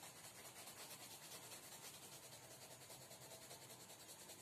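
Faint scratching of a blue coloured pencil rubbed back and forth over sketchbook paper in quick shading strokes.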